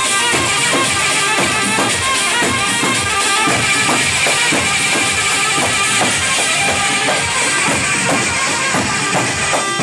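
Instrumental dabke dance music: a steady, fast drum beat under a melody line, with no singing.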